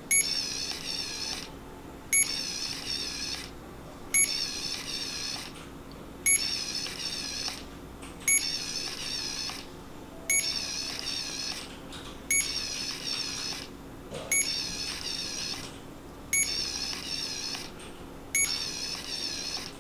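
CADD Legacy ambulatory infusion pump priming IV tubing with the prime button held down. It runs in a repeating cycle about every two seconds: a short click, then about a second and a half of high wavering whir as the pump pushes medication through the line.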